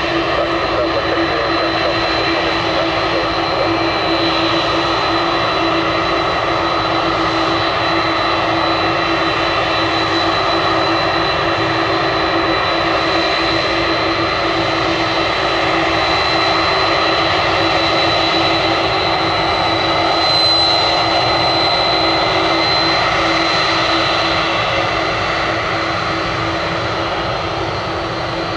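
Boeing 747's four jet engines running at taxi power as the jumbo jet taxis past close by: a loud, steady jet whine with a high tone over a low hum, swelling slightly about two-thirds of the way through and easing off near the end.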